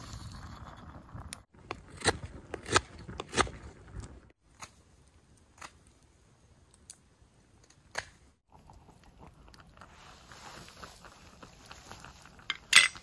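Knife whittling a wooden spoon blank: a quick run of short, crisp cuts into the wood in the first few seconds, then a few scattered single ticks. A loud sharp clatter near the end.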